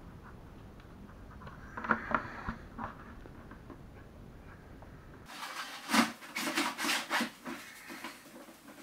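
Hands handling the plastic diffuser cover of an LED ceiling lamp: a few knocks about two seconds in, then a run of sharp plastic clicks and knocks as the cover is pressed onto the ceiling-mounted base.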